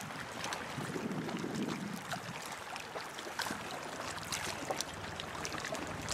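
Water washing along the aluminium hull of a sailboat as it moves slowly through floating ice, with many scattered small clicks and crackles and a brief low rumble about a second in.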